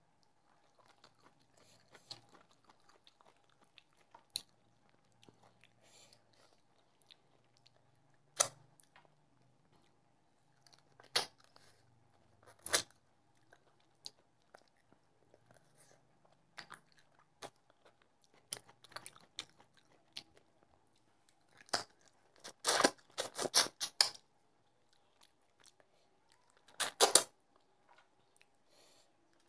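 Close-miked chewing and mouth sounds of a person eating rice and fish curry by hand: scattered sharp smacks and crunches with quiet gaps, and a busier run of them about two-thirds of the way through. A faint steady hum lies underneath.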